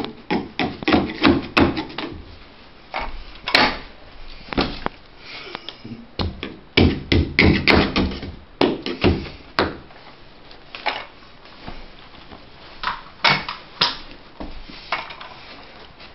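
Carpet being worked by hand along the wall and its edge tucked under the baseboard onto the tack strip: irregular scrapes, rustles and knocks of carpet and a hand tool against the strip and baseboard.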